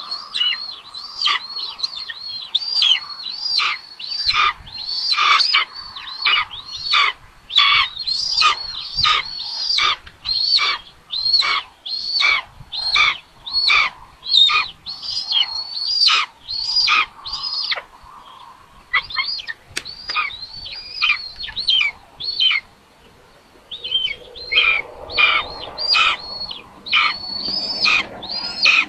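Nestling birds of prey begging in the nest while being fed: a steady string of short, high piping calls, about two a second, each rising and falling in pitch, with a couple of brief pauses in the second half.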